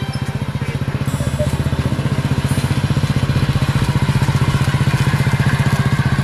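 Hero Splendor motorcycle's single-cylinder four-stroke engine running at low speed with a steady, rapid beat as the bike is ridden up and brought to a stop.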